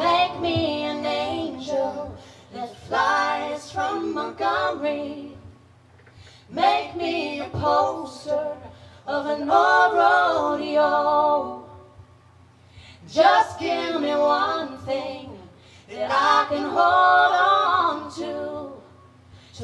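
Unaccompanied vocal harmony: two women and a man singing a cappella in sung phrases separated by short breaths, over a faint steady low hum.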